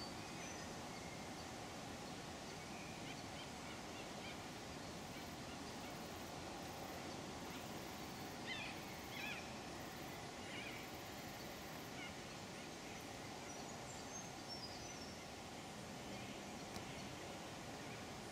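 Outdoor ambience: a steady background hiss with faint, scattered bird calls, including a few short chirps about halfway through.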